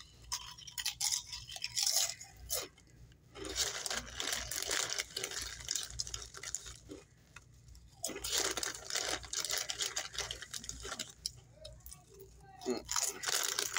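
Chewing and crunching on Doritos tortilla chips close to the microphone, in crunchy bursts with short pauses between.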